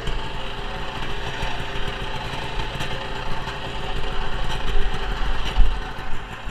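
1971 Ski-Doo TNT 640 snowmobile's two-stroke twin engine running steadily.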